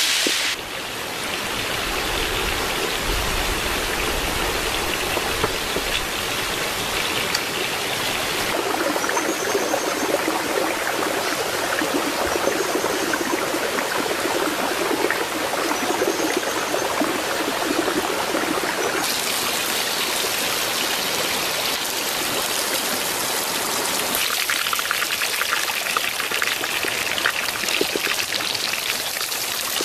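A shallow stream running over rocks, a steady rush of water whose sound shifts abruptly a few times.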